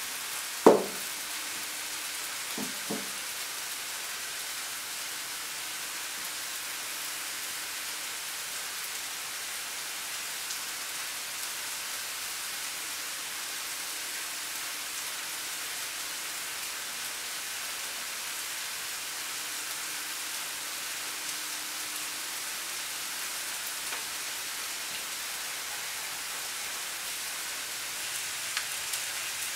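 Steady sizzling hiss of food frying in a pan on the stove. A sharp knock comes about a second in, and two softer knocks follow a couple of seconds later.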